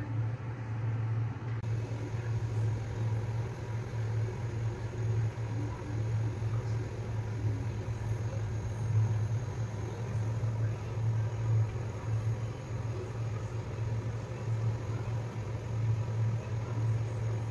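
A steady low hum with a faint hiss underneath, unchanging throughout.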